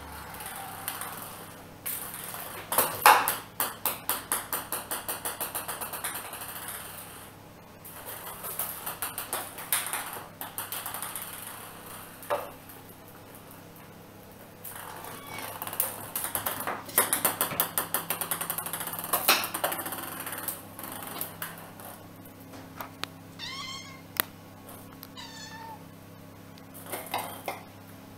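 A small white plastic ball bouncing and skittering over a tiled floor as kittens bat it, heard as runs of quick light taps. Two short kitten mews come in the second half.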